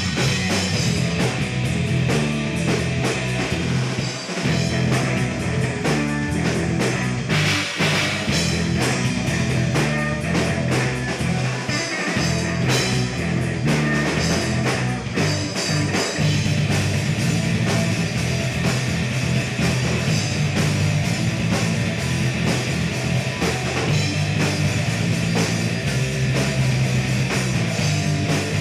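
A rock band playing live and loud, with electric guitar, electric bass and drum kit and no singing. The bass and drums drop out for an instant a few times, as if on short band stops.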